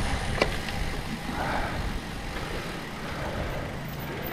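Steady low rumble and hiss of wind and rolling noise from a road bike moving slowly over gravel, with a single click about half a second in.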